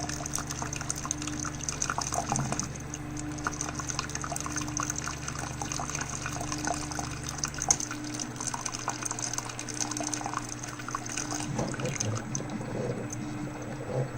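Coffee maker running a descaling cycle with white vinegar: liquid drips and trickles into a measuring cup over the machine's steady hum. The low part of the hum drops away about eight seconds in.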